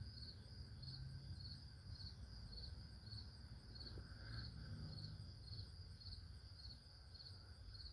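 Faint, steady chirping from crickets outdoors, about two short chirps a second, over a low background rumble.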